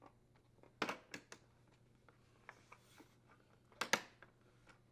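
Plastic dishwasher control panel being pressed onto the outer door panel and snapped into position: a few sharp plastic clicks about a second in, then a louder double click near the end.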